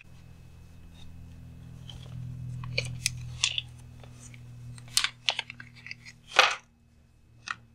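Small clear plastic parts bag being handled and crinkled by gloved hands, with scattered short crinkles and light clicks, the loudest about six and a half seconds in, over a low steady hum.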